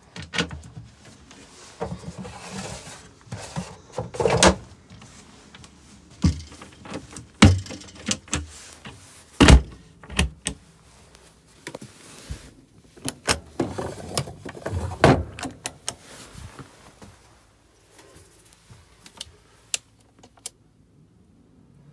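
Wooden cupboard doors and drawers in a motorhome's kitchen units being opened and shut one after another. Push-button catches click and the doors close with solid clunks, several of them loud, thinning to a few light clicks near the end.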